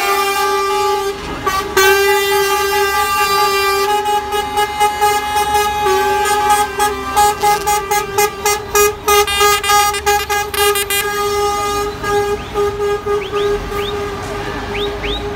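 Lorry air horns sounding: a long held horn note, broken from about four to eleven seconds in by a rapid run of short toots. Near the end, a string of quick rising chirps.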